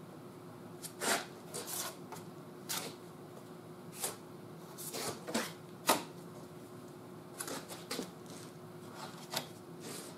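Body filler being spread with a hand spreader over a bare, welded steel patch panel: short, irregular scraping strokes, more than a dozen.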